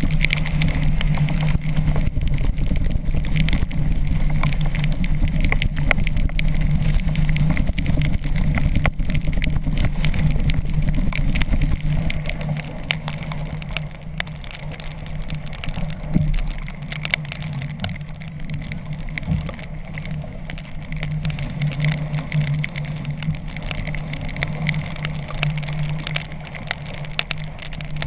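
Jet ski engine droning steadily while it tows the sailing kayak through rough water, mixed with wind noise and spray and rain spattering. It drops back somewhat about twelve seconds in.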